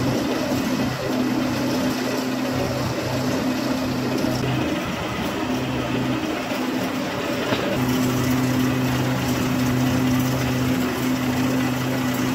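Corrugating machine running steadily, a low mechanical hum over an even wash of noise as kraft paper feeds through its heated rollers. The hum dips out briefly a few times.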